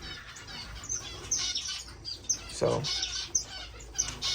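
Many small cage finches chirping, short high calls overlapping throughout, several of them quick falling notes.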